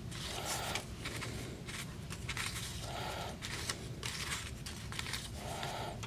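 Old paper candy and gum wrappers and comic inserts rustling and crinkling as they are handled and sorted, with small irregular rustles and light clicks throughout.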